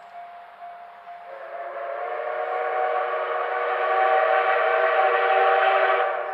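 Steam locomotive C11 325's whistle giving one long blast that starts about a second in and grows louder, a chord of steady tones with a rushing edge that drops away near the end.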